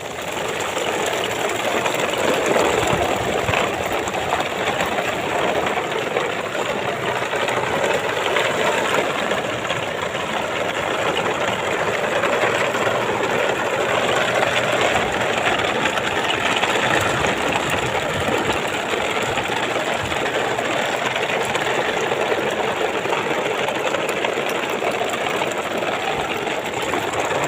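Toy trucks running along in a convoy, a steady mechanical whirring and grinding.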